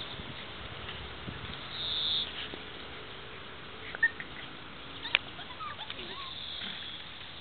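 Five-week-old puppies at play, giving a few short high squeaks and yips: a sharp one about four seconds in, another about five seconds in, and small whimpers around six seconds, over a steady outdoor hiss.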